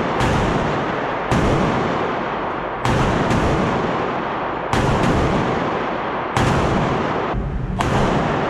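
Six single gunshots spaced about one and a half seconds apart, each with a long echoing decay.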